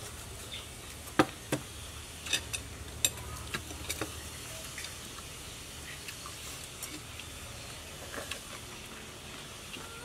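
Eating sounds: scattered sharp clicks and taps of chopsticks and crab shell against plates as mud crab papaya salad is eaten, most of them in the first few seconds, the loudest about a second in, over a steady low hum.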